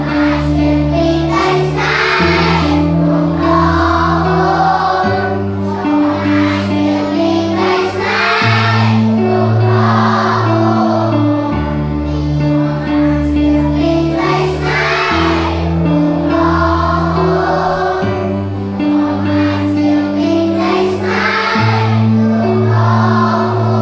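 Background choral music: a choir singing over sustained chords that change about every three seconds.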